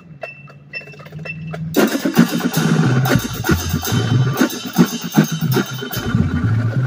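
Marching band percussion section with front ensemble playing: soft clicks over a low held bass note, then about two seconds in the full section comes in loud, with sharp drum and cymbal hits over a stepping bass line.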